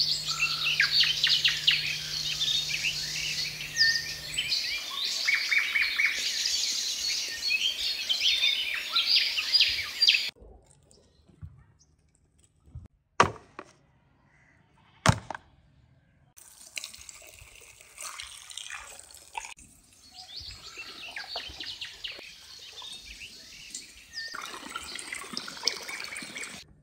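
Many birds chirping and singing together for about the first ten seconds. After a quiet stretch with two sharp knocks, water is poured and splashes into a plastic tub to wash a whole raw chicken.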